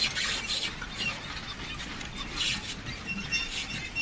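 Manure spreader working: irregular scraping, rasping bursts with short high squeaks, several of them in quick succession near the end.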